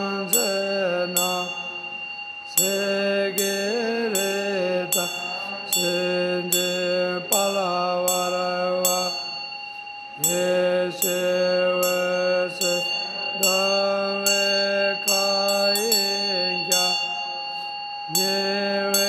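Tibetan Buddhist chant sung by a male voice in long held notes, in phrases with short breaks between them. A brass Tibetan hand bell (drilbu) rings along with it: its clapper strikes in quick clusters and its clear tones ring on steadily.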